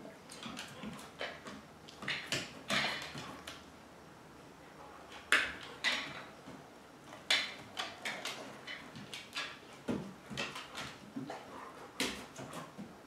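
A dog sniffing in short, irregular bursts as it searches small lids on a hardwood floor for a scent, with a few sharper knocks and clicks among the sniffs.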